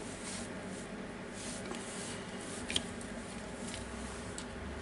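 Quiet room tone with a few faint, short clicks and rustles of small plastic drill parts and wires being handled by gloved hands.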